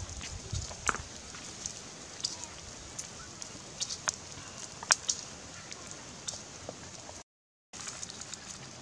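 Small wood fire crackling: scattered sharp pops over a steady soft hiss. The sound cuts out for about half a second near the end.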